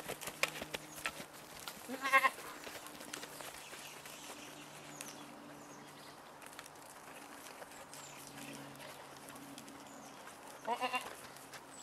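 Boer goats bleating twice, a short quavering bleat about two seconds in and another near the end, with scattered light knocks in the first couple of seconds as the goats jostle and butt heads.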